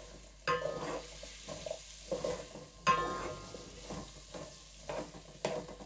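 Wooden spatula stirring sliced onion, garlic and ginger frying in butter in a metal pot: repeated scrapes across the pot bottom over a light sizzle. Twice, about half a second in and about three seconds in, a stroke brings a brief ringing tone.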